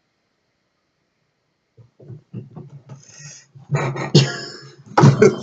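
Dead silence for about two seconds, then a person's voice making wordless vocal noises that grow louder toward the end.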